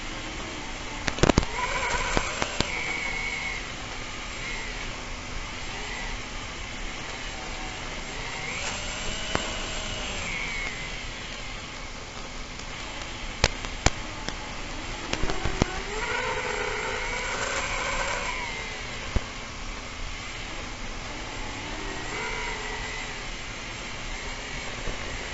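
FPV quadcopter's motors whining over a steady rush of wind and propwash, their pitch rising and falling in several swells as the throttle is worked, with a few sharp clicks.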